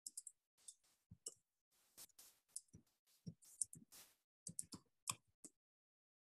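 Faint, irregular clicking of typing on a computer keyboard, about twenty keystrokes that stop about five and a half seconds in.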